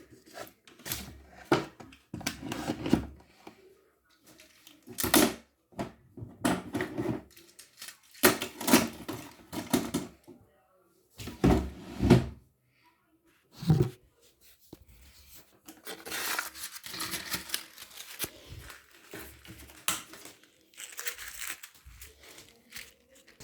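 Irregular rustling, crinkling and clicking of packaging and small plastic toys being handled and gathered up, in uneven bursts with a longer stretch of rustling in the second half.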